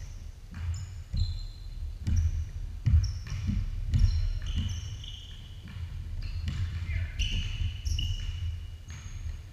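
Basketball bouncing on a hardwood gym floor in repeated, irregular thuds, with sneakers squeaking on the boards in short high chirps.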